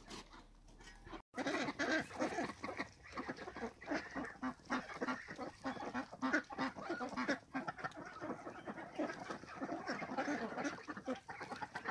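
A flock of domestic ducks quacking and chattering in quick, overlapping calls, starting about a second in.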